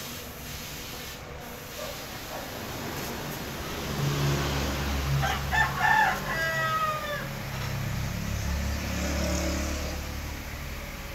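A gamecock rooster crows about five seconds in: a few short notes, then one long, slightly falling note. A low rumble runs underneath from about four to ten seconds in.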